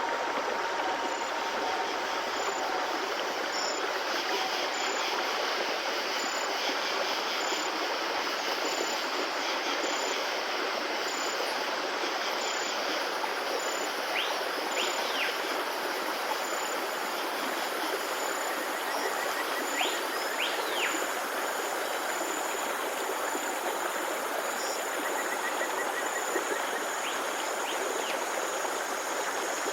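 Steady rushing of flowing water, a stream. A few faint, short, high chirps sound over it about halfway through and near the end.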